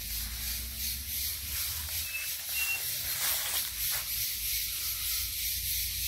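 Cicadas buzzing as a steady high hiss, with low wind rumble on the microphone and a few faint, short high peeps.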